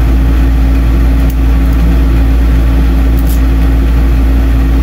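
RV air conditioner running: a loud, steady low hum with a constant drone over it. A couple of faint light ticks come about a second and about three seconds in.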